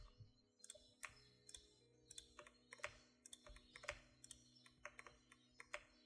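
Faint, irregular clicks of a computer keyboard being typed on, two or three keystrokes a second.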